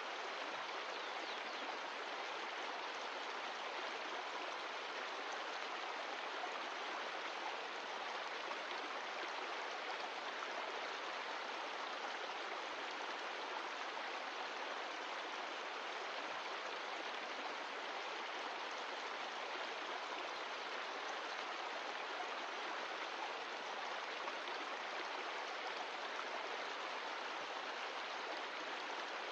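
Mountain stream of glacial meltwater rushing and splashing over rocks, a steady, even water noise.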